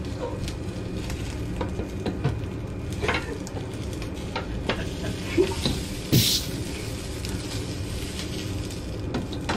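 Chicken rice and egg sizzling in a frying pan, with a spatula scraping and tapping against the pan. There are scattered clicks and a brief louder burst about six seconds in.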